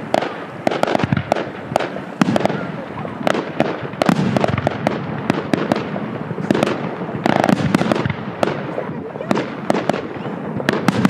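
Fireworks display: a rapid, unbroken run of sharp bangs, several a second, with crackling between them.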